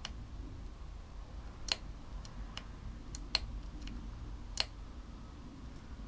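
A handful of short, light clicks at irregular intervals over a faint, steady low hum.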